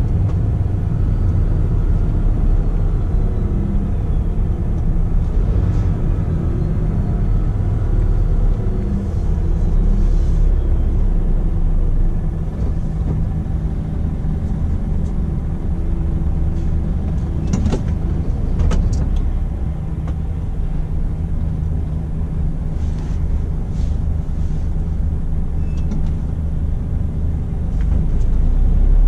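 Scania R450 truck's six-cylinder diesel engine running steadily on the move, with road noise. A few sharp clicks come about two-thirds of the way through.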